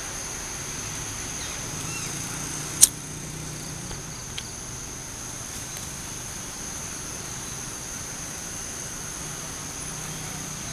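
Steady high-pitched insect drone, with one sharp click about three seconds in and a fainter tick a little after.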